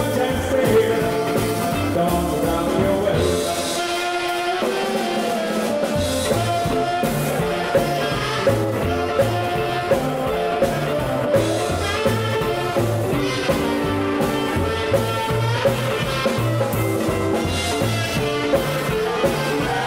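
Live 1950s-style rock 'n' roll band playing: electric guitars, bass and drum kit over a walking bass line and a steady backbeat. The bass drops out for a couple of seconds early on, then the full band comes back in.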